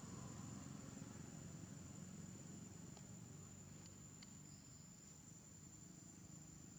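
Near silence: faint outdoor ambience with a steady high-pitched insect drone, and a few faint ticks about halfway through.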